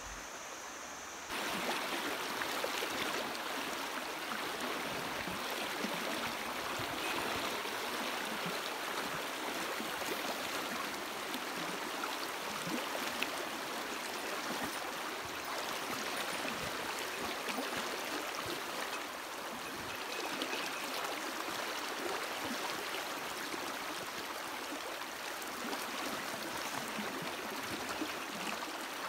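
Shallow mountain stream running over a rocky riffle: a steady rushing of water, louder from about a second and a half in.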